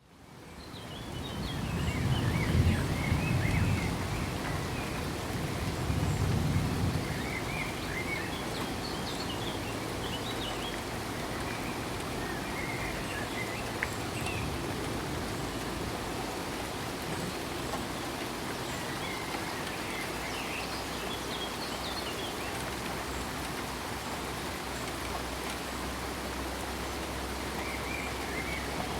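Steady rain falling, fading in over the first two seconds, with a low roll of thunder from about two to seven seconds in. A few short high bird chirps come through the rain now and then.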